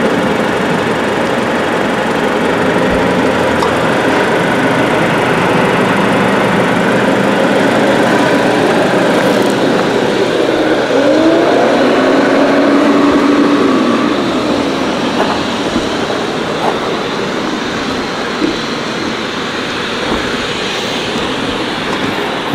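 Steady motor-vehicle running noise, with a tone that rises and then falls about halfway through.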